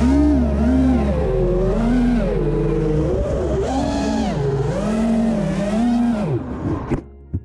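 Five-inch FPV racing quadcopter's T-Motor 2400kv brushless motors and props whining, the pitch rising and falling as the throttle is worked. The whine drops away about six seconds in, with two short knocks near the end.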